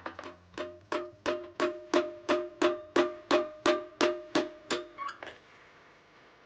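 Hammer blows on a metal part of a washing machine being broken down for scrap: about a dozen steady strikes, roughly three a second, each ringing briefly at the same pitch, then a couple of quick lighter taps before stopping.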